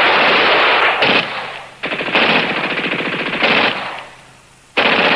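Heavy automatic gunfire in long bursts from a WWII battle scene: a sustained burst, a second one after a brief break, a short lull, and a new burst near the end.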